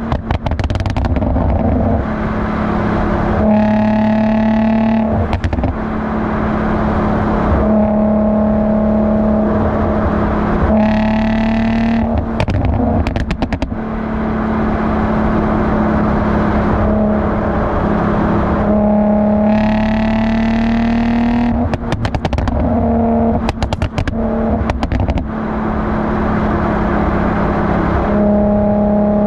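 Infiniti G35's 3.5-litre V6 exhaust, a Motordyne Shockwave system with ART pipes, heard right at the tailpipes: a steady cruising note broken by several pulls where the pitch rises. On lifting off after the pulls come clusters of sharp crackles and pops, the overrun pops and bangs programmed in by its UpRev tune.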